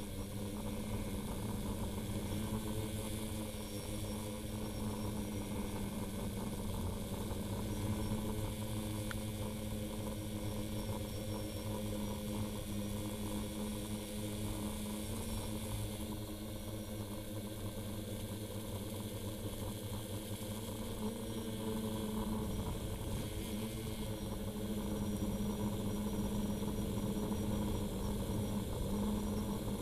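Multirotor drone's electric motors and propellers humming steadily, heard through the camera mounted on the aircraft. The hum eases a little past the middle and grows stronger again over the last few seconds.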